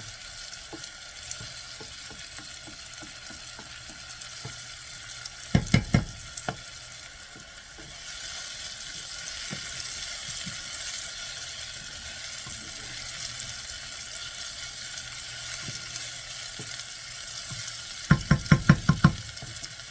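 Chopped onions sizzling in oil in a pot while being stirred. Twice, about six seconds in and again near the end, a quick run of loud knocks.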